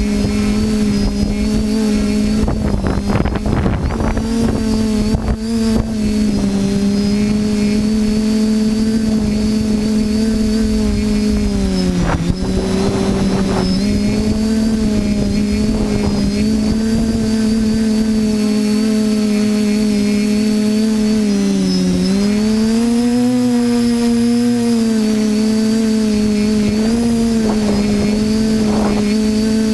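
TBS Discovery quadcopter's electric motors and propellers giving a steady, even-pitched drone in flight. The pitch dips briefly about twelve seconds in and again near twenty-two seconds, as the throttle changes. Rough, crackly noise breaks up the drone over the first few seconds.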